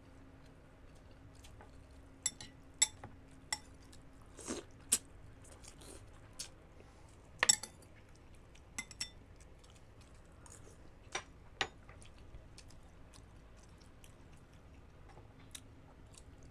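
Close-miked eating: metal spoons clicking and scraping against young-coconut shells, with chewing and mouth sounds. About a dozen short, sharp clicks come scattered through, the loudest about seven and a half seconds in.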